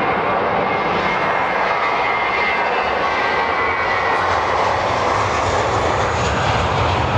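Jet airliner engine noise played through loudspeakers for a model KLM airliner taxiing at a miniature airport: a steady rushing whine, with a low rumble building from about five seconds in.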